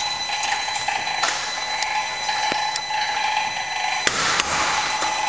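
Barbed wire making machine running slowly, its single electric motor on an inverter set to 5 Hz: a steady whine with metallic ticking and rattling from its gears and wire-twisting mechanism. A few sharp clacks, the loudest two close together near the end.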